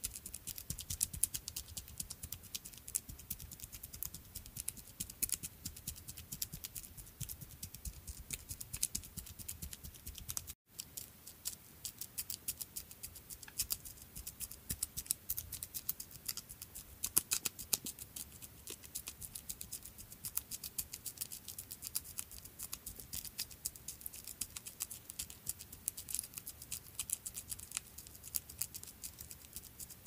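Sound effect of a small creature's footsteps: fast, light clicking and pattering steps, many per second, with a brief break about ten and a half seconds in.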